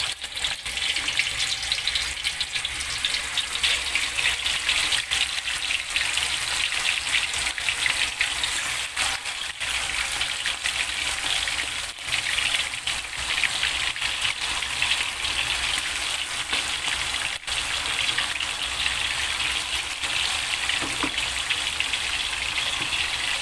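Chicken pieces frying in hot oil in a wok, being par-fried until half cooked: a steady crackling sizzle with a few sharp pops.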